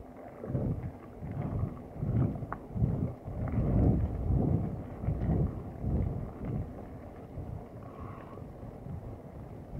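Wind rumbling on the microphone while a mountain bike rides over a rough dirt forest trail, with a few faint rattles from the bike. The rumble surges unevenly and is strongest around the middle.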